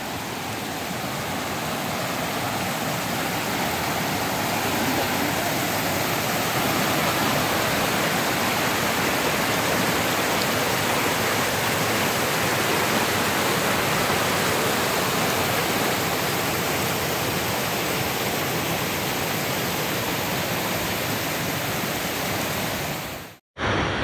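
Waterfall rushing, a steady unbroken roar of falling water that grows a little louder over the first few seconds and then holds even. It cuts off abruptly near the end.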